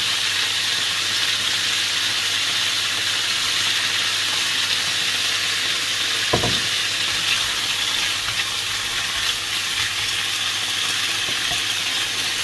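Diced pork belly sizzling steadily in fat in a nonstick frying pan as a dark sauce is poured over it and the pieces are stirred with a wooden spatula. A single knock comes about halfway through.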